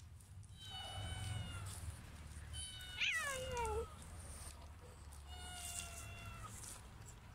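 A cat meowing three times, the loudest call about three seconds in sliding steeply down in pitch.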